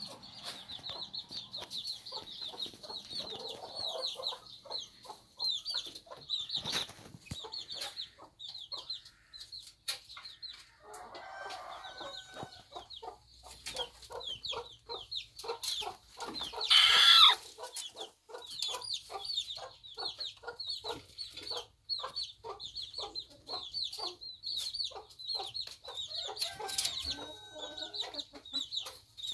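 Hens sitting in nest boxes clucking in a quick, even series of short notes, over a constant run of high chirps. About halfway through comes one loud call, the loudest sound of the stretch.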